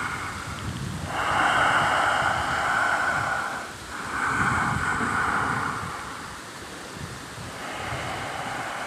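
Slow, deep breathing heard close up: long rushing breaths in and out, each lasting about two to three seconds, with short pauses between them.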